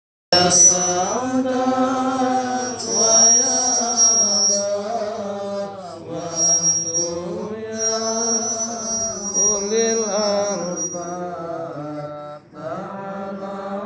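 Dhikr chanting through a public-address sound system, with a thin high-pitched feedback whine ringing over the voices on and off, the longest stretch lasting about three seconds.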